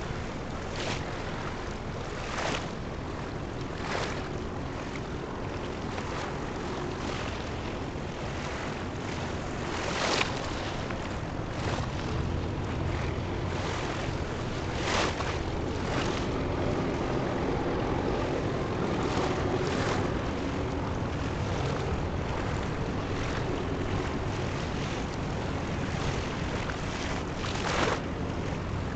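Wind buffeting the microphone over washing waves, with a few short gusty knocks. A low rumble swells from about halfway through.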